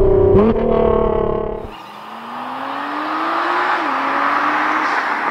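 Nissan GT-R's twin-turbo V6 at high revs under hard acceleration, heard from inside the cabin, with a quick upshift about half a second in. From about two seconds in, the GT-R is heard from far off while approaching: its engine note rises steadily, drops at an upshift near four seconds, and climbs again as the car grows louder.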